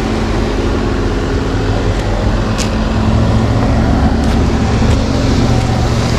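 Pickup truck's engine running under load as it tows a fifth-wheel camper up a gravel drive, a steady rumble that grows louder from about three seconds in as the camper rolls past.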